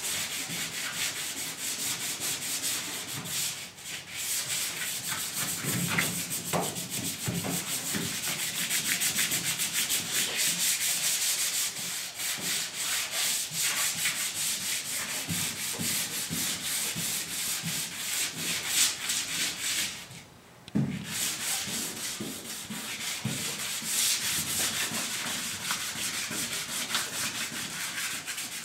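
Sandpaper being rubbed by hand over the coated floor of a truck bed in quick back-and-forth strokes, with a short pause about twenty seconds in.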